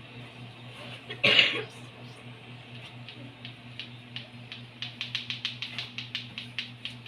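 A person coughs once, loudly and briefly, about a second in. It is followed by a run of short, sharp clicks that come faster toward the end, about five a second, over a steady low hum.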